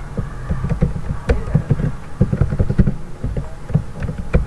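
Computer keyboard typing: a quick, irregular run of key clicks as a password is keyed in.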